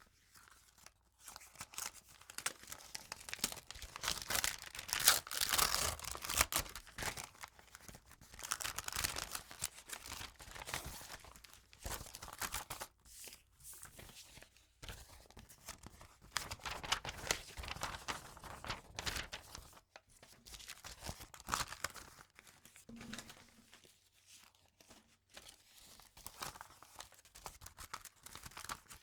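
Envelopes being torn open: paper tearing and ripping in repeated bursts, with crinkling of the paper between tears.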